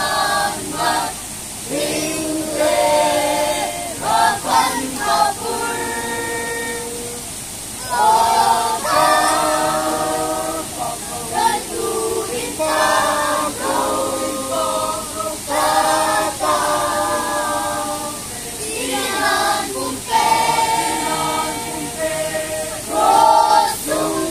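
A mixed choir of children and young people singing together without accompaniment, in phrases of a few seconds with short breaks between them.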